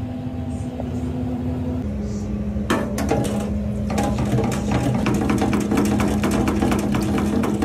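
Italian sausage deep-frying in a wire fryer basket: the hot oil bubbling with dense crackling and popping, starting about a third of the way in. A steady low hum runs underneath.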